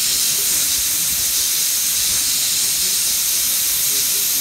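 Hot-air plastic welding gun blowing a steady hiss of hot air onto the saw-cut edge of a polycarbonate sheet, melting the edge.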